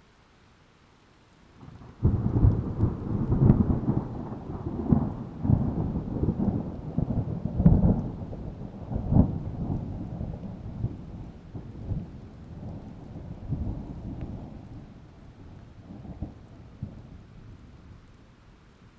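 A thunderclap: a sudden crack about two seconds in, then a long rolling rumble with repeated cracks that slowly fades away.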